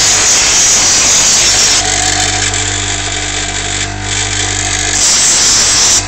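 Electric power tool running and grinding a strip of hacksaw-blade steel into a lock pick, a steady motor hum under a loud, hissing grind. The hum drops away at the start and again about five seconds in while the grinding noise carries on.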